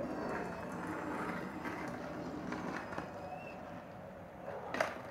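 Faint, steady rolling of skateboard wheels on street pavement, with a short click near the end.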